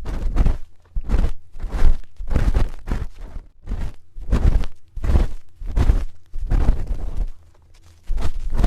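A spoon scraping and rubbing close against the microphone in ASMR ear cleaning: repeated scratchy strokes, about one to two a second, with a brief pause near the end.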